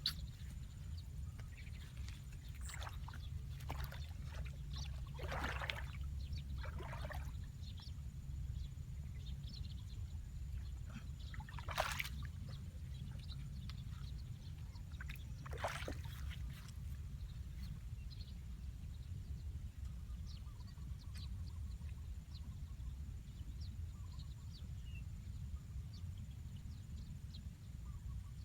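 Shallow water sloshing and splashing now and then, with two sharper splashes past the middle, over a steady low rumble.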